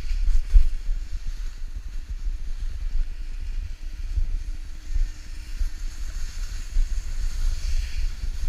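Wind buffeting the microphone of a body-worn action camera during a snowboard run, in gusty low rumbles, over a steady hiss of the snowboard sliding on snow that grows brighter near the end.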